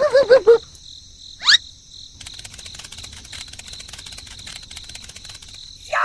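Cartoon-style sound effects: a wobbling, falling tone that stops about half a second in, then a quick rising whistle. From about two seconds in comes a quieter, steady chirring of crickets.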